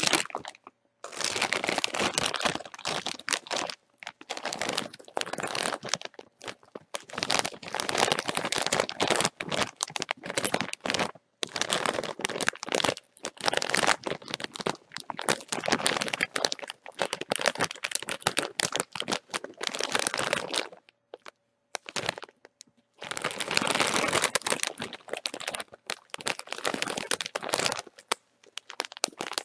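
A bag of chips being crinkled and scrunched by hand: dense, crackly rustling in long stretches, with a few brief pauses and a longer one about three-quarters of the way through.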